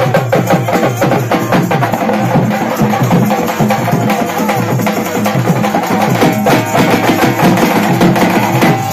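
Drums beaten by hand in a fast, dense rhythm without a break.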